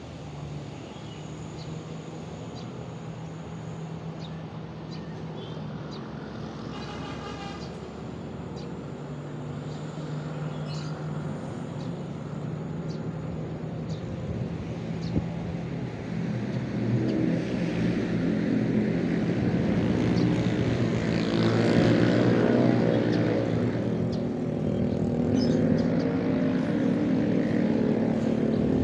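Road traffic: vehicle engines running, growing louder in the second half as a vehicle draws close, with short bird chirps above.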